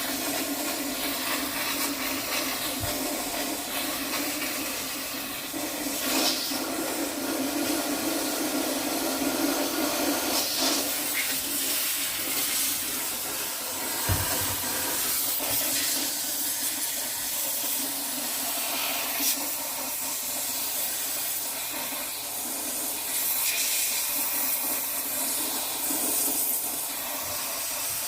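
A steady rushing, hissing noise like running water or air, with a couple of brief low knocks.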